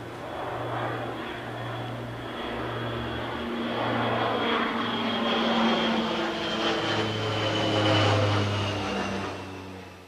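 A passing engine that builds to its loudest about eight seconds in, with a thin high whine that slowly falls in pitch, then fades away near the end.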